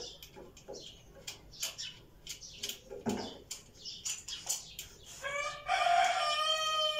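Scattered light metallic clicks and taps as hands work loose parts on a petrol generator's frame. Near the end, a rooster crows once in one long call that drops slightly at the end.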